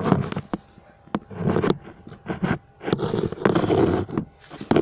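Phone camera being handled and moved into position: irregular bursts of scraping and rustling against the microphone, with a few sharp knocks.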